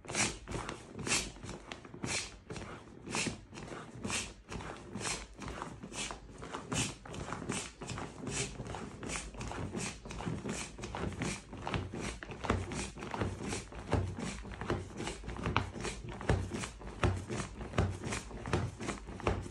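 Foot pump built into the end of an inflatable camping sleeping pad being pressed over and over, a puff of air with a soft thump at each press, about two a second, as the pad is pumped firmer.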